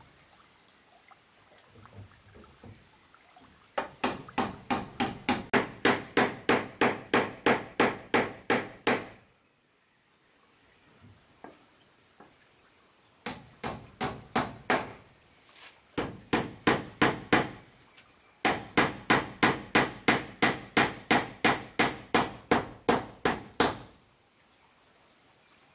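A tool striking wood again and again, about three blows a second, in runs of several seconds with short pauses between them.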